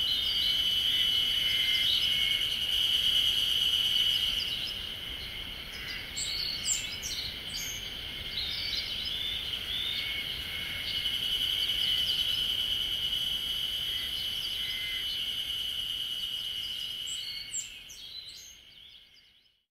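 A steady, high-pitched chorus of insects, with a few short bird chirps here and there. It fades away near the end.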